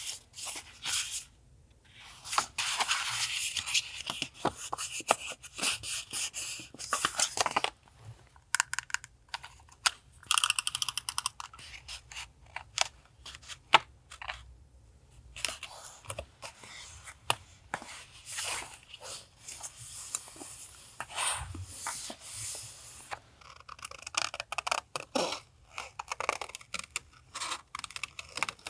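Paper and journaling materials handled at close range: irregular rustling, scraping and tearing of paper with scattered light clicks, and a quick crackling run about ten seconds in.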